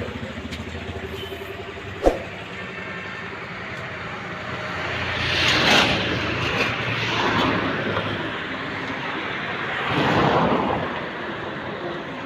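Heavy road traffic: a steady low engine rumble with one sharp knock about two seconds in, then two vehicles passing close by, one around the middle and one near the end, each swelling up and fading away.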